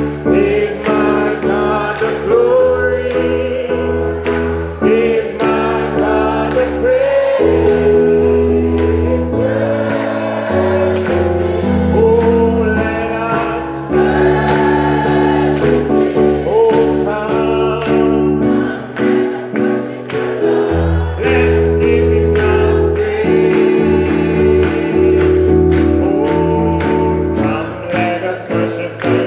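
Congregational gospel singing: a male worship leader at a microphone and the congregation singing together over instrumental backing with a steady bass line, hands clapping along.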